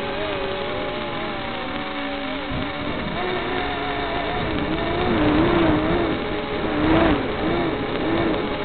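Micro quadcopter's small brushed motors (Hubsan X4 107C) whining over a steady hiss, their pitch wavering up and down with the throttle. They grow louder around five and seven seconds in.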